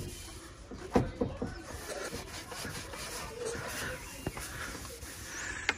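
Microfibre cloth rubbing and wiping over a motorcycle's painted front mudguard, buffing in waterless wash and wax, with a few knocks, the loudest about a second in, and a sharp click near the end.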